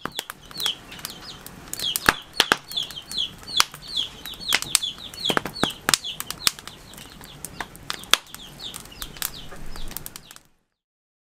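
Open wood fire crackling, with irregular sharp pops and snaps, some loud. Behind it a high chirp repeats, short falling notes at about three a second. Both cut off suddenly near the end.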